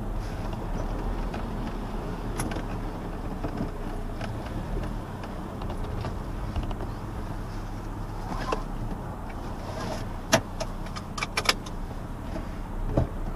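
A 1994 Saab 900 S running at low speed in city traffic, heard from inside the cabin as a steady low engine and road hum. A handful of sharp clicks or knocks come about ten to eleven and a half seconds in, and again near the end.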